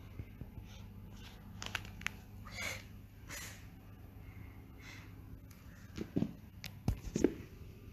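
Quiet room with a phone being bumped and handled as a kitten paws at it: soft rustles and clicks, a brief falling squeak about two and a half seconds in, then a few louder knocks and thumps about six to seven seconds in.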